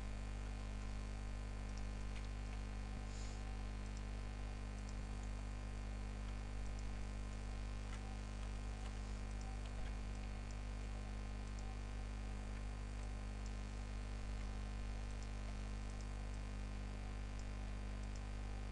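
Steady electrical mains hum on the recording, with a few faint mouse clicks now and then.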